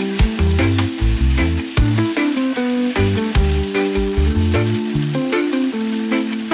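Background music with a steady beat and a moving bass line, over a bright, sizzling hiss.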